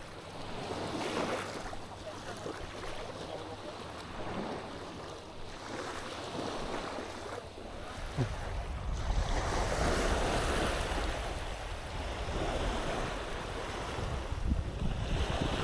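Sea waves washing onto the shore, with wind buffeting the microphone; the wind rumble grows stronger about halfway through.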